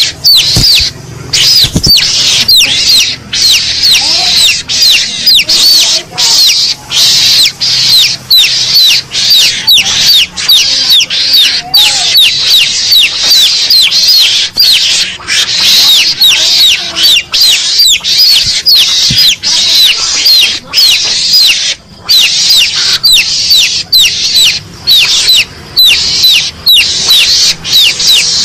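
Mongoose (garangan) lure call: a loud, unbroken series of shrill chirps, about four a second, each falling in pitch.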